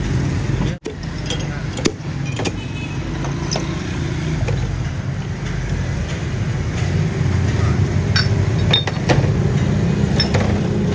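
Steady street traffic rumble with scattered sharp clinks of glass soda bottles and steel mugs as soda is poured out at a stall.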